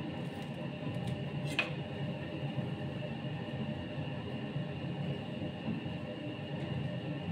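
A steady droning hum, with one short sharp click about a second and a half in.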